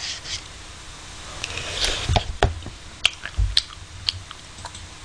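A spoon scraping and clicking in a paper ice cream cup while ice cream is eaten. There are several sharp clicks, a short scrape about two seconds in, and a few low thumps along with the eating sounds.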